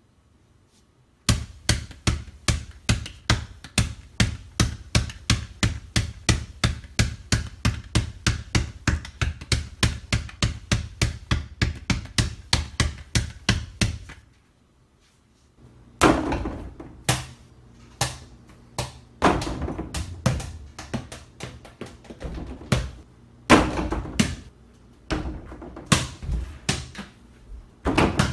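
Small 5-inch rubber mini basketball dribbled on a tile floor, about three bounces a second for some twelve seconds. After a short pause come irregular thuds and knocks as the ball is shot at the over-the-door hoop's backboard and rim.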